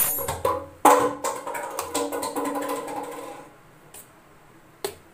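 A steel spoon stirring liquid in a stainless steel bowl, clinking against the metal. A harder knock about a second in sets the bowl ringing, and the ring fades over the next couple of seconds amid scattered clinks, with one more clink near the end.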